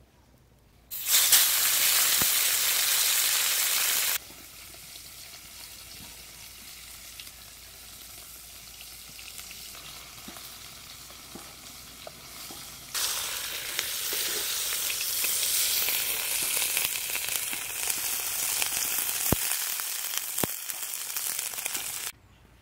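Masala-coated pomfret frying in hot oil in a wok, with a steady sizzle. It is loud for about three seconds, quieter for several seconds, then loud again for most of the rest, and each change in level is abrupt.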